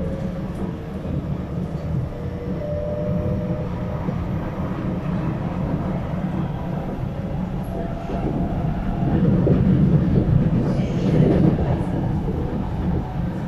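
Cabin noise of an SMRT C751B metro train running at speed: a steady low rumble, with a faint whine in the first few seconds. It grows louder for a few seconds past the middle.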